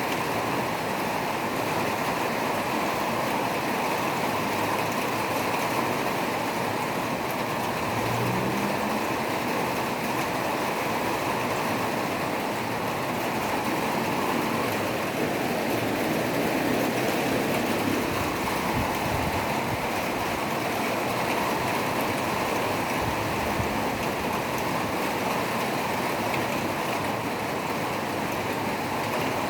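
Heavy rain falling steadily, a continuous rushing noise with no breaks.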